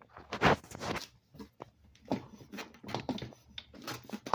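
Irregular clicks, scrapes and rattles of metal hardware being worked by hand as an e-bike's wheel, axle and washers are handled, with the loudest scraping clatter about half a second in.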